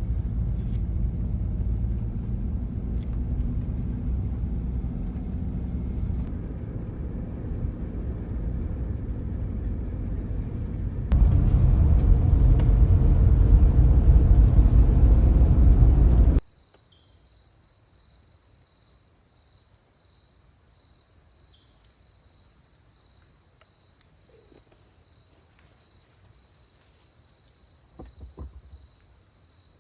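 A loud, steady low rumbling noise that gets louder about eleven seconds in and cuts off suddenly about sixteen seconds in. After that an insect trills steadily: one high, finely pulsing note.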